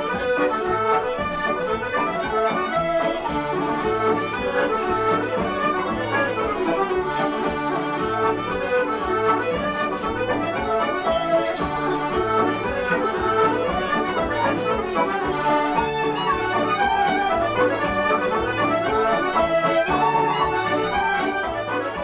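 Traditional Irish instrumental music led by an accordion, playing a lively tune over a steady, regular bass rhythm.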